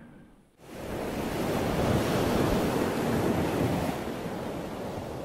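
Ocean waves surging and breaking against rocks, a rush of surf that comes in suddenly about half a second in, swells, then eases off toward the end.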